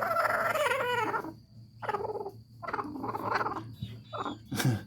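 Broody hen protesting at being disturbed on the nest: a long wavering call for about the first second, then a string of short, harsh, growling squawks, with a sharp one near the end.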